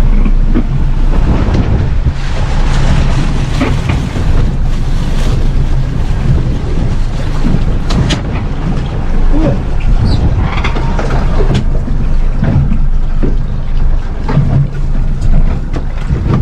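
Small fishing boat's engine running steadily, a constant low hum, with wind on the microphone and water noise.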